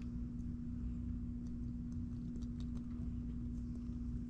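Faint scattered ticks and small pops of a fizzy tablet bubbling in the volcano kit's tube, over a steady low hum.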